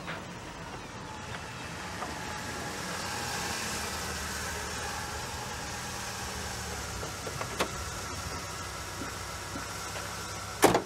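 Car engine running steadily as the car rolls up and idles, with a sharp click about two-thirds of the way through and a loud thud near the end as a car door is shut.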